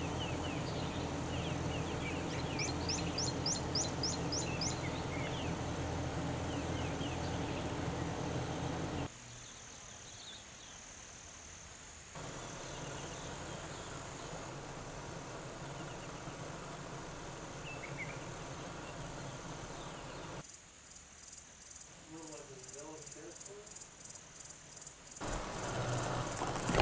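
Outdoor bush ambience: steady background hiss with insects and scattered short bird chirps, including a quick run of high ticks a few seconds in. The background changes abruptly several times.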